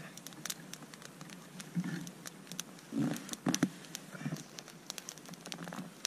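Small campfire of dry twigs and thin sticks, just lit and catching, crackling with many sharp irregular snaps and pops. A few duller thuds and rustles come from the twigs being handled.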